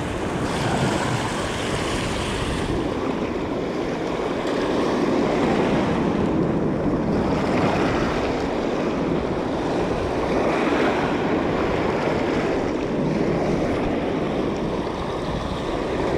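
Steady rushing of sea surf, with wind buffeting the microphone.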